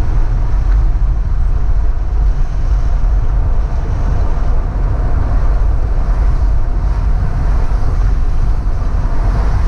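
Steady low road rumble and wind noise of a car driving along at speed, heard from inside the car through a dashcam microphone.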